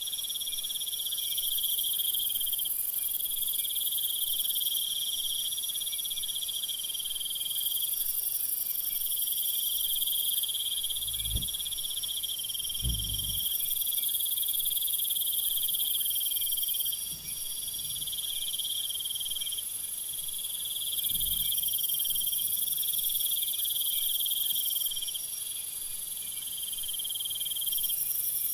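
Crickets chirring steadily in a continuous high-pitched chorus, with a lower trill under a higher one. A few soft low thuds come about halfway through.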